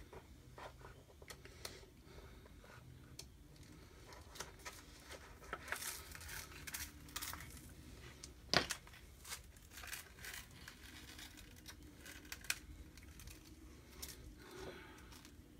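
Faint rustling and crinkling of a Chalk Couture adhesive silkscreen transfer being peeled from its backing sheet and pressed onto a microfiber towel, with scattered small crackles and one sharper crackle about eight and a half seconds in.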